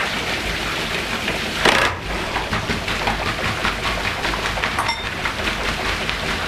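Cordless impact driver hammering rapidly as it undoes the end-cap bolts of a steel pressure chamber, with water gushing and splashing out of the loosening flange onto the floor. There is a louder surge about two seconds in.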